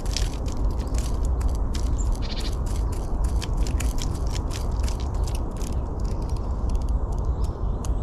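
Wind rumbling steadily on the microphone, with many quick sharp ticks and clicks and a couple of brief high bird chirps.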